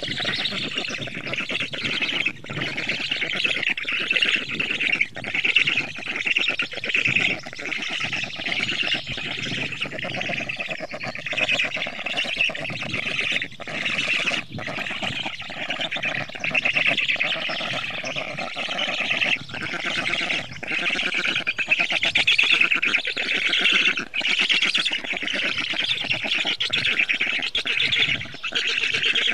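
Many birds calling at once in a dense, continuous chatter that swells and dips in loudness.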